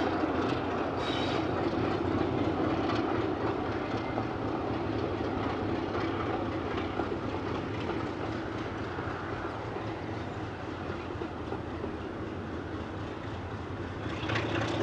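Class 33 diesel locomotive's Sulzer eight-cylinder engine running steadily as the train moves, with wheels clicking over rail joints; the sound slowly gets a little quieter.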